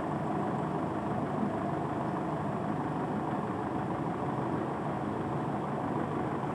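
Steady city-street traffic noise: vehicle engines running and idling in a continuous mid-to-low rumble.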